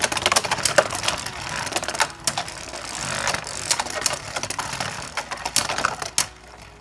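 Two plastic Beyblade Burst tops, Super Hyperion and Kolossal Helios, spin in a plastic stadium with a steady grinding whir, broken by repeated sharp clacks as they collide. The sound quietens about six seconds in.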